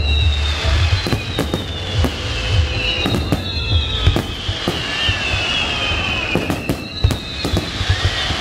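Aerial fireworks shells bursting in quick succession, with sharp bangs, crackling and low booms. Long whistling tones that slowly fall in pitch recur every few seconds.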